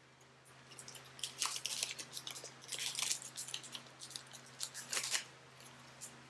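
Packaging being handled and unwrapped: a run of scratchy, crinkling crackles for about four and a half seconds, dying away near the end.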